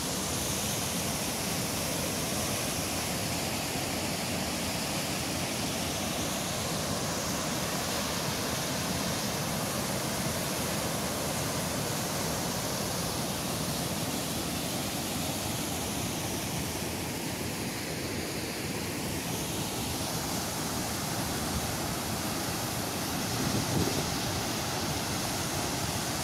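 Water rushing steadily, a continuous even roar of a stream or outflow from a dammed lake.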